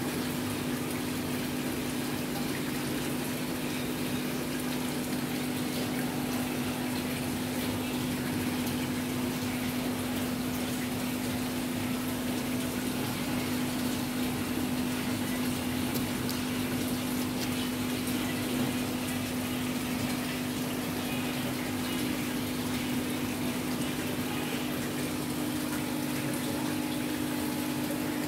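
Aquarium pump running with a low steady hum, and water bubbling and splashing in the tank.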